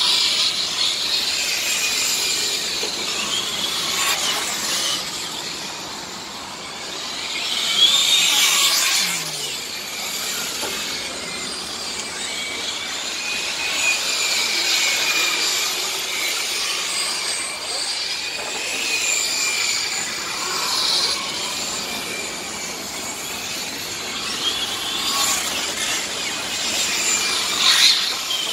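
Radio-controlled model racing trucks running laps on an asphalt track: a high motor whine rises and falls as they accelerate and brake, swelling louder as a truck passes close, about eight seconds in and again near the end.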